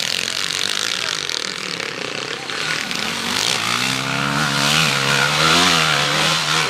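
Enduro motorcycle engine revving hard under load as the bike climbs a steep muddy slope, its pitch rising and falling with the throttle. It grows louder about halfway through.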